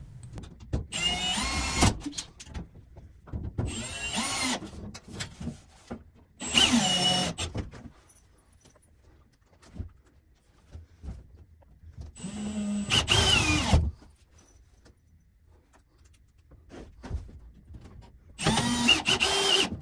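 Milwaukee M18 cordless drill driving screws through a steel mounting plate into a wood wall, in five short runs of about a second each with pauses between, the motor pitch rising and falling on each run.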